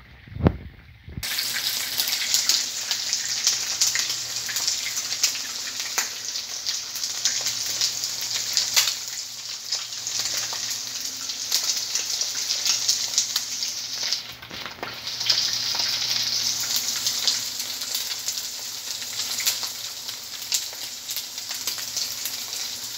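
Pork belly strips frying in hot oil in a nonstick pan: a dense sizzle full of sharp crackling pops of spattering fat, starting about a second in after a couple of low thumps, and fading briefly about halfway through.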